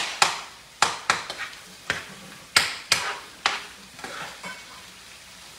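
Spatula scraping and knocking against a skillet while stirring sizzling ground chuck and chorizo: about seven sharp strokes over the first three and a half seconds, then only a faint sizzle.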